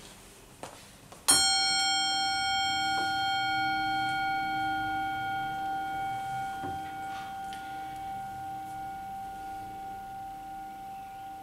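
Metal singing bowl struck once about a second in, then ringing on with several steady tones that fade slowly, with a gentle wavering in loudness.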